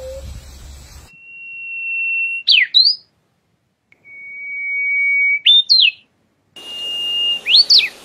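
A songbird whistling, three phrases: each a long, steady high whistle that swells in loudness and ends in a quick up-and-down slurred flourish. It follows the end of a lower, curving call from a different bird.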